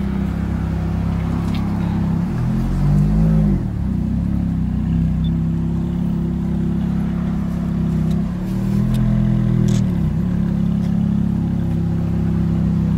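Ferrari F430 Spider's V8 idling and creeping forward at low speed. The revs rise and fall briefly about two and a half seconds in, and again in a longer swell about eight seconds in.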